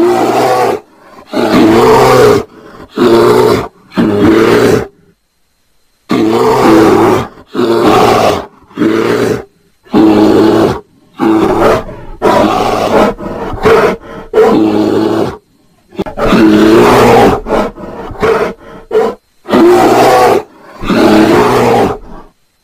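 Bear roaring in a long run of loud calls, each about half a second to a second and a half long, broken by short silences; given as the calls of mating bears.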